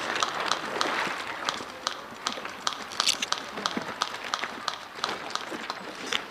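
Footsteps of a player running, with many irregular sharp clicks and clatter.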